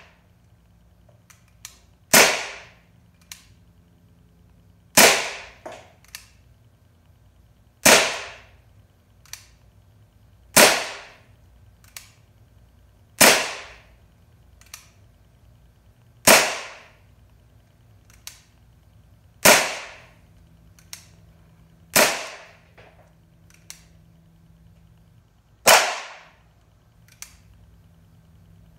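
Daisy Powerline 5501 CO2 semi-automatic BB pistol firing nine single shots, one every two to four seconds. Each is a sharp pop that dies away over about half a second, and faint clicks come between the shots.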